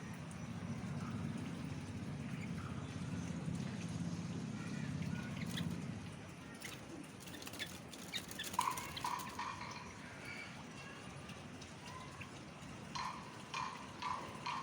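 Pet bird giving short, repeated chirps in two brief runs, with scattered clicks. A low steady hum fades out about six seconds in.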